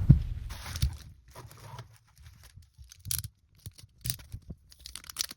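The tail of an explosion sound effect dies away in the first second. After that come scattered short rustles, crinkles and tearing sounds of packaging being handled and opened.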